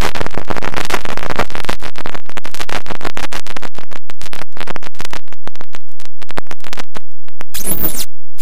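Loud, glitchy electronic sound chopped into rapid stuttering bursts. The cuts to silence grow longer and more frequent in the second half, and a few bursts of hiss come near the end.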